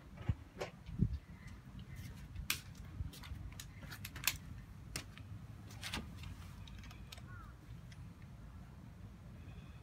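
Scattered sharp clicks and light knocks of metal hand tools being handled, a handful spread over several seconds, over a steady low outdoor rumble.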